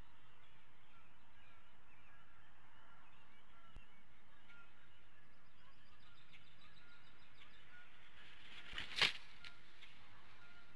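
An adult bald eagle arriving at its stick nest: a brief rush of wing noise ending in a sharp landing hit near the end. Under it, a steady hiss with faint small-bird chirps.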